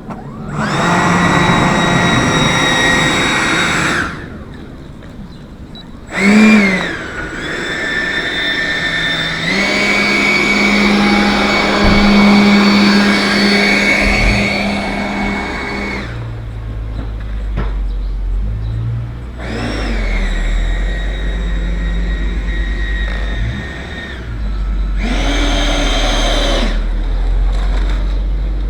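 The motor of a radio-controlled L-39 model jet, taxiing, whines in repeated throttle bursts. It spools up, holds and cuts back several times, with a short blip near the start and a longer run of several seconds in the middle. A low rumble joins in during the second half.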